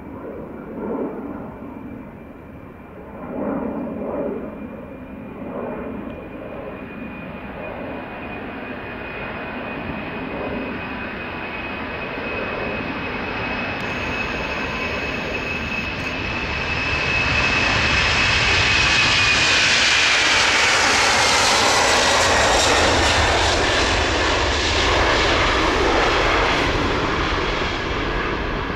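KLM Boeing 747-400's four General Electric CF6-80C2 turbofans at take-off power on the take-off roll: a steady high whine over a deep rumble, growing louder as the jet comes closer. The whine drops in pitch as it passes, about twenty seconds in, and the rumble stays loud as the aircraft lifts off.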